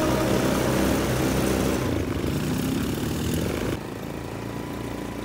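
A small 150cc automatic ATV engine running while riding on a dirt trail, with rough, steady engine noise that drops in level and eases off almost four seconds in.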